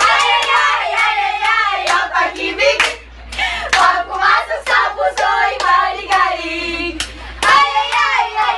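A group of young women and a boy singing together, with hand claps among the voices.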